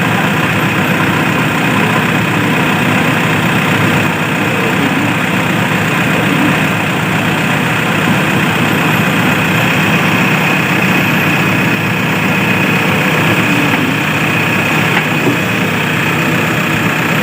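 Diesel engine of heavy machinery running steadily at an even speed.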